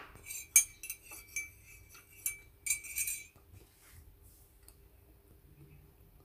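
A quick run of light clinks with a high ringing tone, like small hard objects knocked together, over about three seconds; then only faint room tone.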